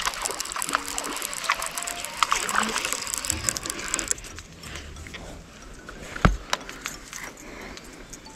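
Baitcasting reel being cranked to retrieve a lure: a dense, fine clicking from the gears for about four seconds, then quieter winding. One dull thump about six seconds in.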